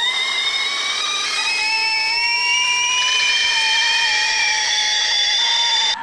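Several stovetop kettles whistling together at the boil: a loud, steady chord of high whistle tones that slowly creep up in pitch, with a lower tone joining about a second and a half in.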